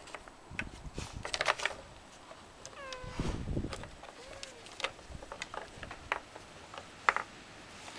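Clicks and knocks of a wooden dog puzzle board's pegs and sliding covers as a hound noses and paws at them, the sharpest clacks about one and a half seconds in and again just after seven seconds. About three seconds in there is a short whine-like sound that falls in pitch.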